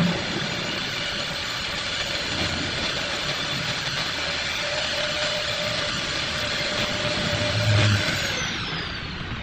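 Handheld electric rotary tool with a carving burr, running at high speed and grinding out the inside of a wooden vase's neck. A little past eight seconds in it is switched off, and its whine falls as the motor spins down.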